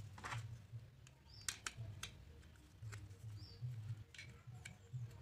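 Small clicks and taps of a steel hinge rod and white PVC-sheet door parts being handled and fitted by hand, over a steady low hum.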